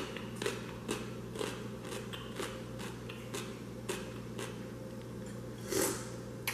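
A person chewing crunchy pickled beets with the mouth close to the microphone: short crisp crunches about twice a second, with a longer, louder crunch near the end.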